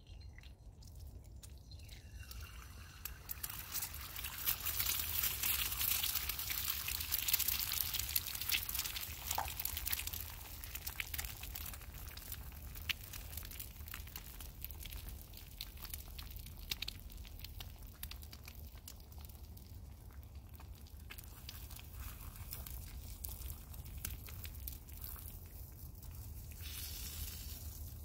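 An egg frying in a hot pan over a small wood-fired stove: a loud crackly sizzle starts a second or two in as the egg hits the fat, then settles to a quieter steady sizzle, and flares up briefly again near the end.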